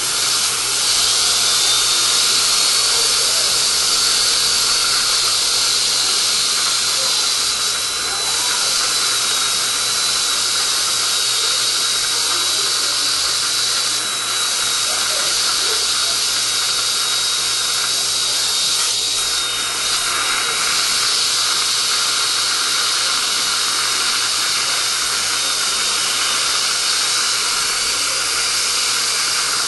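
Dental handpiece with a bur running against an exposed tooth root, preparing a root-resorption defect. It makes a steady high whine over a continuous hiss, and the whine climbs in pitch about a second in and again near the end.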